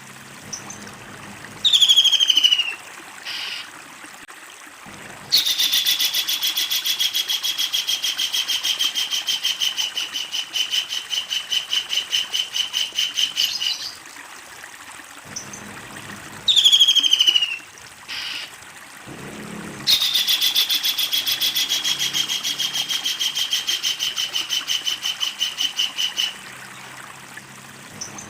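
Kingfisher calling twice. Each time a short downward-sliding call leads into a long, rapid series of evenly repeated notes that sinks gently in pitch, the first lasting about eight seconds and the second about six.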